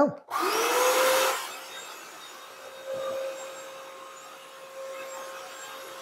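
Bissell CrossWave Pet wet-dry vacuum-mop switching on, its motor whine rising in pitch and settling into a steady tone. It is loudest for the first second or so, then runs on steadily as it is pushed across a tile floor, sucking up a liquid spill.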